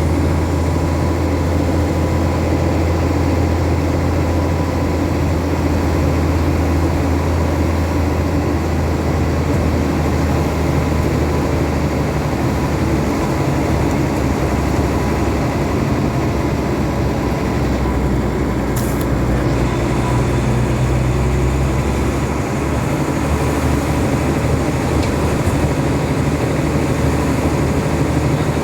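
Steady low engine drone and road noise inside a moving vehicle, even in level throughout, with a brief faint high click about nineteen seconds in.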